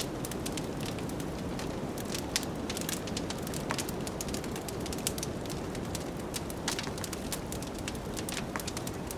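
Wood fire crackling in a fireplace, with frequent irregular sharp pops and snaps over a steady rushing of blizzard wind.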